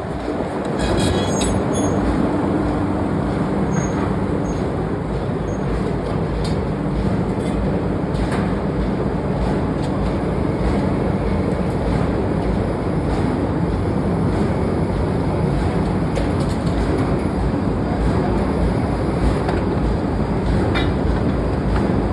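Heavy forging-shop machinery running steadily, such as a ring rolling mill: an even low rumble with a low hum and a few faint clicks.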